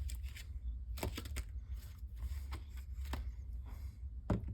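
Cut cardstock and paper pieces being handled and shuffled on a craft desk: light rustles and taps, a quick cluster about a second in and a few single ones after, over a steady low hum.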